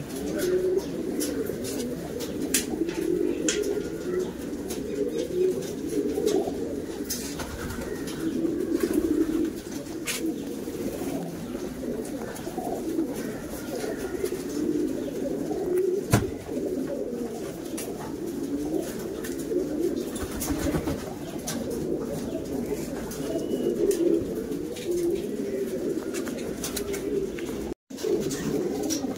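Domestic fancy pigeons cooing steadily, their low, rolling coos overlapping with no pause, with a few light clicks and a brief break near the end.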